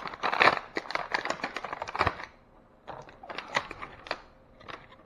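Rapid clicks and crinkles of plastic packaging as a small fishing scale is unwrapped and handled. They come thick for about two seconds, pause briefly, then go on as scattered clicks.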